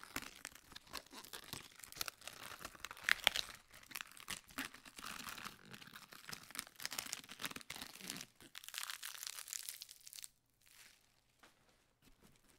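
Lettuce leaves being peeled and torn from a head, a crisp crackling and tearing with sharp snaps, stopping near the end.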